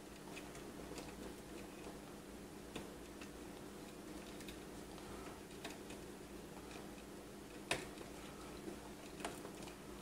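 Faint scattered clicks and ticks of a plastic 8-pin PCIe power connector being handled and pushed into a graphics card's power socket, with one sharper click about three quarters of the way through. A faint steady hum runs underneath.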